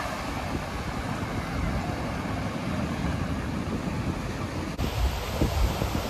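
Atlantic Ocean surf washing onto the beach, with wind buffeting the microphone in gusty low rumbles.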